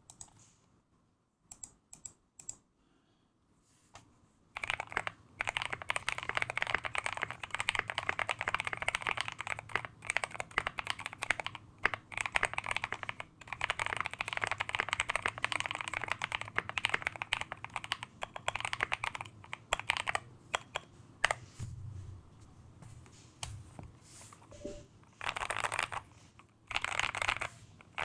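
Typing on a custom KBD67 Lite 65% mechanical keyboard with a brass plate, tape-modded PCB and L+F Creamaron linear switches (Gateron Ink Black housings, NK Cream stems) under KAT Specimen keycaps. A few single keystrokes at first, then fast continuous typing from about four seconds in, thinning out and ending in short bursts.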